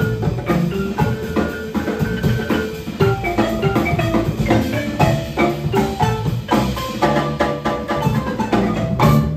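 Live band music: mallets on a wooden xylophone over drum kit, electric guitar and hand drum. The piece stops suddenly on a final hit near the end.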